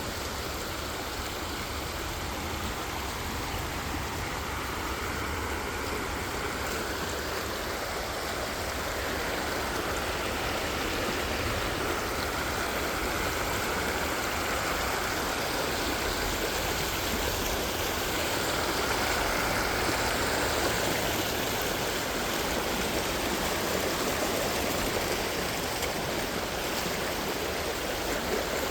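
Floodwater rushing: a steady noise of fast-moving water that grows a little louder partway through, then eases slightly.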